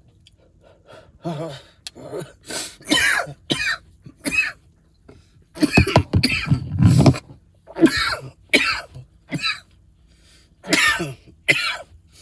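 A man in a coughing fit after inhaling smoke, with a long run of harsh coughs. The longest and loudest burst of coughing comes about halfway through.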